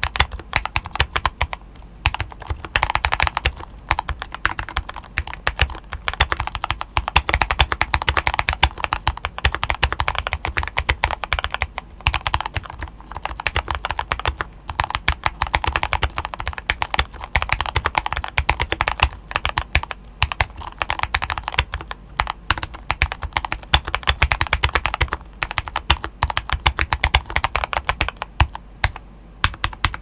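Typing on a Keychron K6 mechanical keyboard with lubed Gateron Brown switches and stock OEM keycaps, the board modded with tape, PE foam, a silicone case pour and plumber's-grease stabilizers: a fast, irregular run of keystrokes with a few short pauses.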